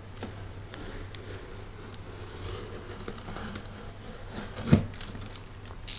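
Box cutter drawn along the packing tape and plastic wrap of a cardboard parcel, a faint scraping and rustling, with one sharp tap about three-quarters of the way through.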